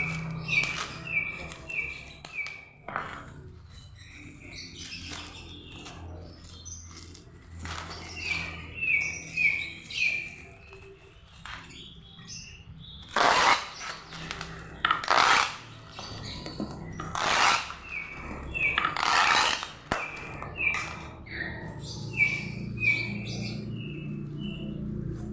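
A small bird chirping in runs of short, repeated high notes, about two a second. In the middle come four loud rasping bursts, each under a second long, from the packing work.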